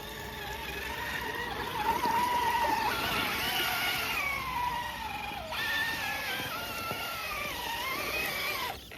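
Electric RC crawler's motor and geartrain whining as it is driven over terrain. The whine rises and falls with the throttle and shifts pitch abruptly about five and a half seconds in.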